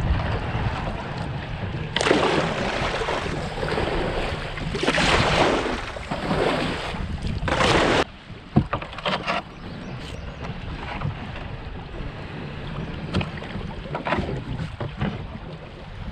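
Water splashing around a canoe under way, with paddle strokes and wind on the microphone. Loud surges of water sound fill the first half and cut off abruptly about eight seconds in. After that the water is quieter, with scattered small knocks and splashes.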